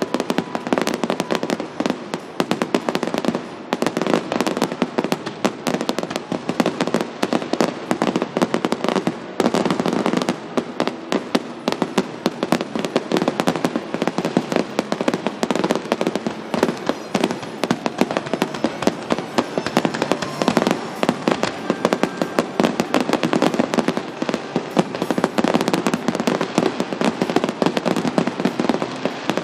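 Fireworks display: a dense barrage of aerial shells going off, many overlapping bangs with hardly a pause.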